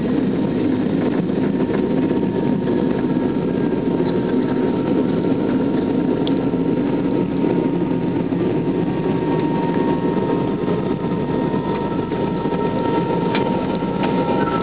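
Airliner cabin noise during the landing roll: the steady rumble of the jet engines and the aircraft rolling on the runway, heard through the cabin, with a thin steady whine that grows stronger about halfway through.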